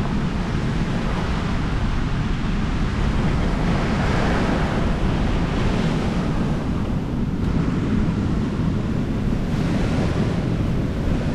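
Waves breaking on the shore of a rough sea, with wind buffeting the microphone. A wave washes in louder about four seconds in.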